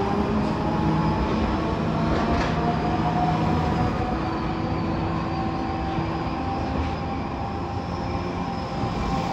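Hiroshima Electric Railway (Hiroden) tram No. 705 pulling away along the street track. Its motors and wheels on the rails give a steady hum of several tones, with a faint high squeal, fading slowly as it moves off.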